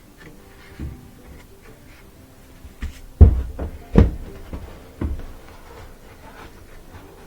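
Several knocks and thumps from parts of a dryer's cabinet being handled, the loudest a heavy thump about three seconds in, followed by two more about a second apart.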